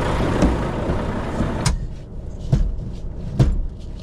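Someone climbing up into a lorry cab; about two seconds in the cab door shuts with a sharp click that cuts off the outside noise. A few knocks inside the cab follow over a steady low rumble.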